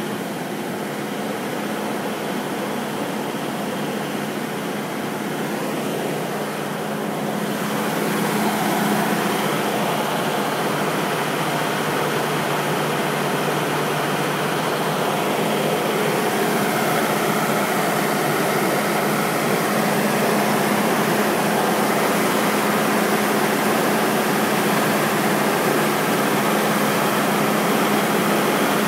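Steady mechanical drone with a constant low hum, growing a little louder about eight seconds in.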